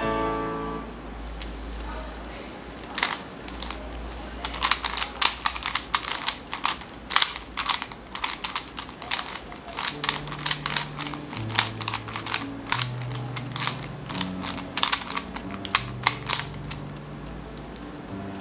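Plastic dice of a handmade dice-cube twisty puzzle clacking as its layers are turned by hand: quick, irregular runs of sharp clicks. Background music comes in about ten seconds in.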